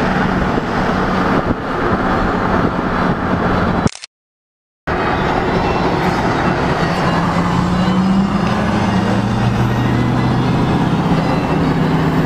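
A moving vehicle heard from inside: a steady rush of wind and road noise over the engine's low hum. It cuts out abruptly for about a second near a third of the way in, then resumes, with the engine note rising a little past the middle.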